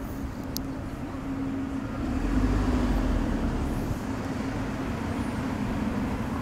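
White-and-tabby female cat growling low and steadily, a threat at a rival cat, carrying on from a yowl. A rough low rumble, handling noise on the microphone, swells from about two seconds in.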